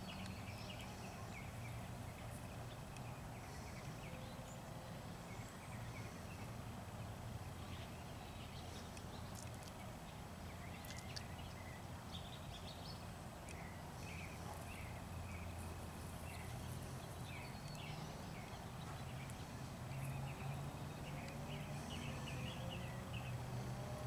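Quiet outdoor ambience: a steady low hum with faint, scattered short high chirps, the hum growing a little louder near the end.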